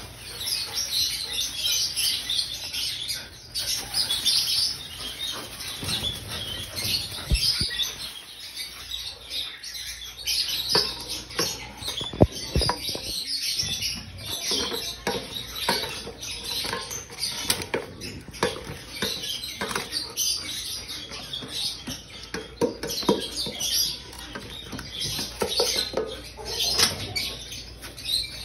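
Thin plastic bag crinkling and rustling as food is squeezed out into a stainless steel bowl, followed by a plastic container scraping and knocking against the metal bowl as the food is mixed.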